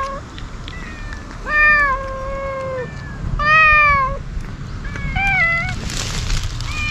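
Stray cats meowing, several separate drawn-out meows, the two loudest about one and a half and three and a half seconds in, each sliding down slightly in pitch. A crackling rustle joins in near the end.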